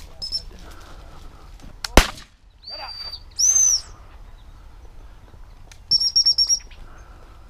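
A single sharp bang about two seconds in, a shotgun shot. Then two short, steady, high blasts on a gundog whistle, and near the end a rapid run of pips on the whistle, as used to call a spaniel in.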